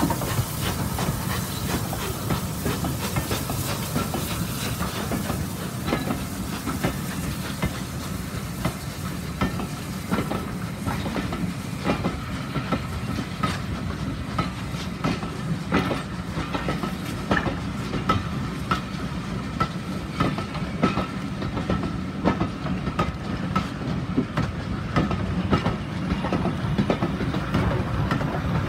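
Steam-hauled passenger train of coaches rolling past at close range, with Bulleid Pacific steam locomotives at front and rear: a steady rumble with the wheels clicking over and over.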